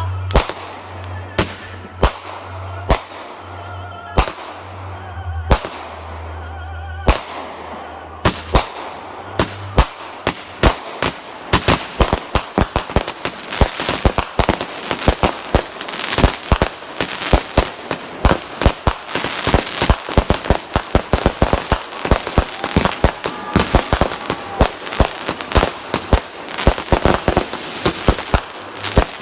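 Fireworks going off: separate bangs and pops spaced a second or so apart for about the first ten seconds, then a dense, continuous crackling barrage of rapid reports.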